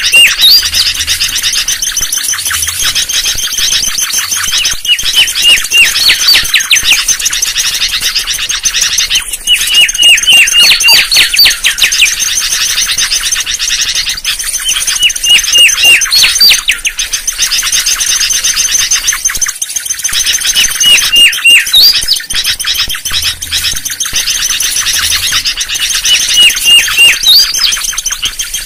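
Mangrove whistler song: short phrases of clear whistled notes ending in quick upslurred whistles, repeated about every five seconds over a constant high hiss.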